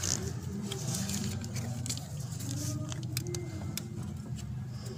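Oxygen sensor's plastic wiring connector being handled and pushed into its mating plug, giving scattered small clicks and rattles over a steady low hum.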